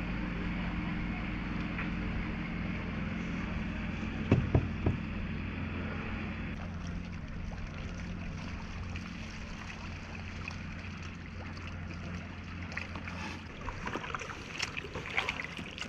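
Kayak paddling on calm water: paddle splashes and drips that pick up over the last few seconds. Underneath runs a steady low hum that fades out about twelve seconds in. A few knocks come about four and a half seconds in and are the loudest sounds.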